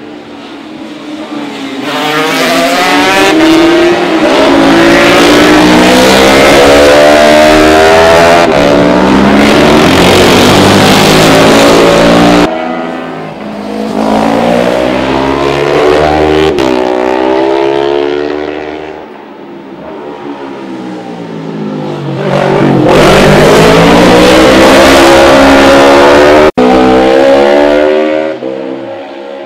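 Racing motorcycles passing at full speed one after another, three loud passes with each engine note rising as the bike approaches and dropping steeply as it goes by, broken by sudden cuts.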